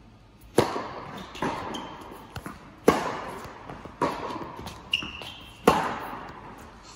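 Tennis rally on an indoor court: a tennis ball struck by rackets and bouncing, six sharp hits about a second apart, each echoing in the hall. Two short high squeaks come between the hits.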